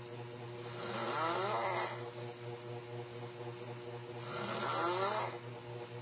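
A sleeping young man snoring with his mouth open: two long snores about three and a half seconds apart, each rising in pitch, over a steady low hum.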